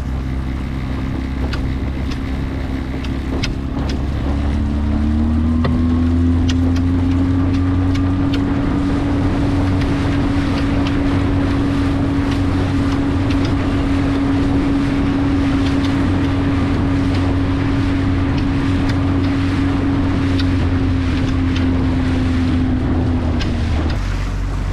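Small outboard motor driving an inflatable boat: it speeds up about four to five seconds in, its pitch rising, then runs at a steady cruising pitch before easing off near the end. Wind buffets the microphone throughout.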